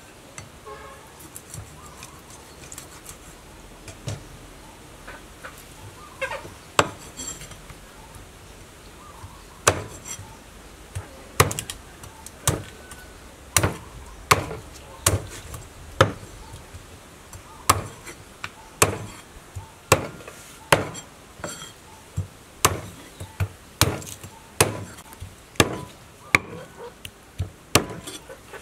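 Heavy kitchen knife chopping a whole chicken through the bone on a round wooden chopping board: sharp chops, only a few at first, then about one a second from about ten seconds in.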